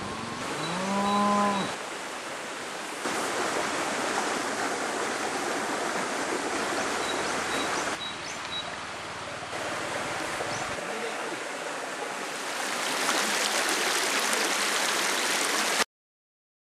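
Steady rush of a stream, with a cow mooing once, about a second long, near the start and a few faint bird chirps. The sound cuts off suddenly near the end.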